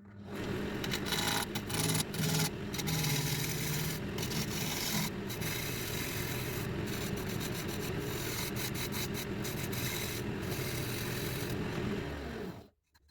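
A turning tool cutting and rubbing against a wooden blank spinning on a lathe, a steady rasping scrape that stops abruptly near the end.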